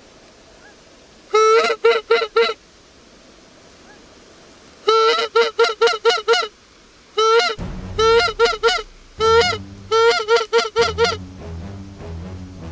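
Goose call blown by hand in quick runs of loud, nasal honks, about six runs of several notes each, imitating geese to bring them in. Low background music comes in about halfway through.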